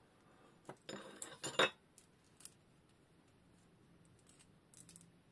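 Metal clamp parts and screws of a sharpening jig being handled on a workbench: a cluster of clinks and knocks about a second in, the loudest near the middle, then a couple of single clinks and a few faint clicks near the end.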